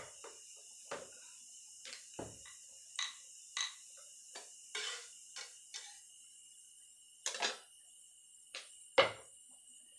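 Rolling pin tapping and clicking against a round rolling board as roti dough is rolled out, in short irregular taps roughly every half second to second, with a brief lull partway through.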